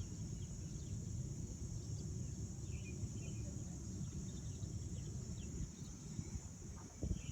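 Steady high drone of insects, with a few short, faint bird chirps here and there, over a constant low rumble.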